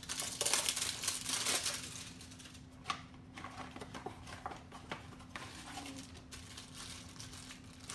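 Packaging of a small Funko Mystery Minis blind box being opened by hand. The loudest part is a burst of crinkling and tearing in the first couple of seconds, followed by scattered light rustles and clicks as the figure is taken out.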